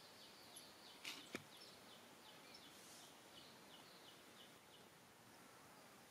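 Near silence: faint outdoor ambience with a soft run of short, high chirps at about three a second, and two faint clicks about a second in.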